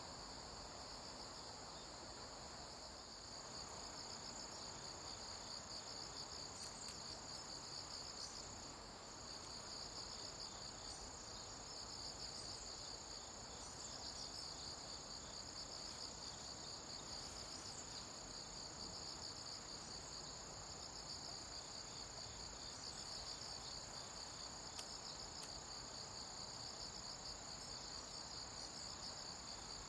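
Insect chorus in the woods: one steady, high continuous whine, with a slightly lower pulsing trill that swells and fades every few seconds.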